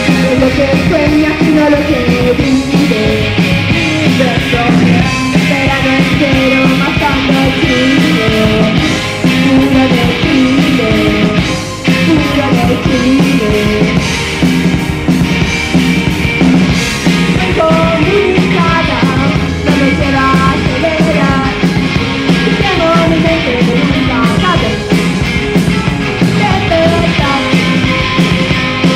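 Live rock band playing at full volume: electric guitars, electric bass and a drum kit, with a lead vocal singing over them.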